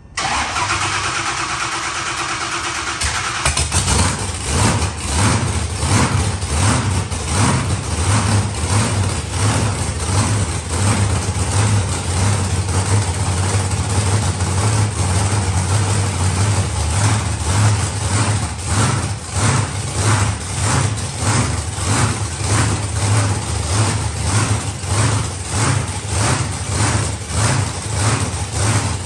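Supercharged, methanol-fuelled monster truck engine starting up on a splash of petrol poured into the supercharger; about three seconds in it comes fully alive and settles into a loud, lumpy idle that swells and dips about once a second.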